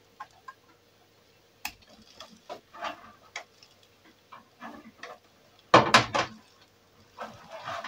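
Computer parts being handled by hand: scattered sharp clicks and light clatter of small plastic and metal pieces, with a louder burst of rattling clicks about six seconds in.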